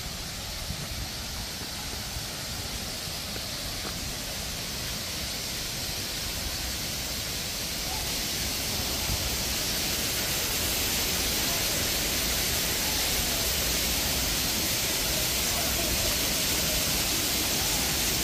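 Waterfall rushing: a steady hiss of falling water that grows gradually louder.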